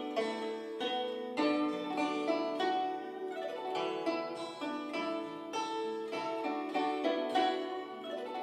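Background music of a plucked string instrument, a zither-like melody with notes struck at a steady pace.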